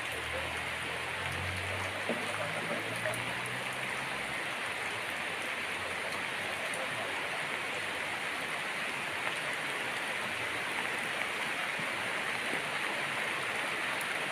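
Steady hiss of rain falling.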